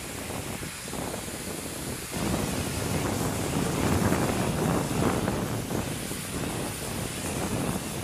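Pressure-washer spray hissing against the condenser coil of a packaged air-conditioning unit, getting louder about two seconds in.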